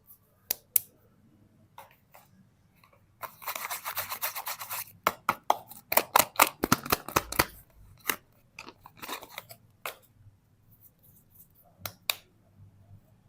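Soap packaging being unwrapped by hand: a short stretch of dense crinkling about three seconds in, then a run of sharp clicks and snaps, easing off into lighter scattered clicks.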